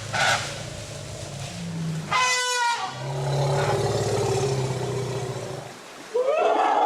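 Elephant calls: a low rumbling growl, a short high call about two seconds in, then a longer low rumble. Near the end a loud trumpet-like call begins.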